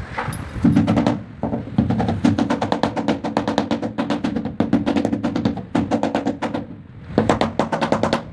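Rubber mallet tapping rapidly on tile to bed it, about eight to ten taps a second in runs with short pauses.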